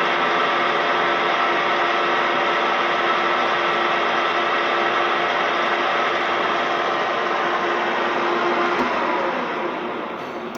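Kolb pillar drill with a 12-speed gearbox running, a steady hum of motor and gears with several steady tones. Near the end it is switched off, with a faint click, and runs down until it fades away.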